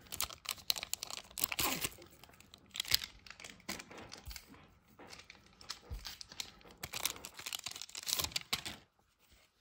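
Silver foil card pack crinkling and rustling as it is handled, in scattered crackly bursts, with the foil being torn open.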